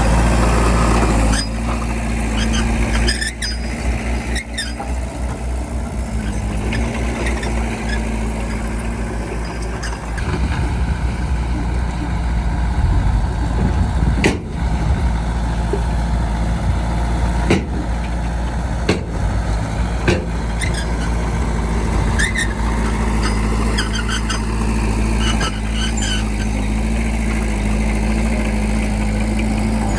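Bulldozer's diesel engine running steadily, with scattered sharp knocks and clanks a dozen or so times.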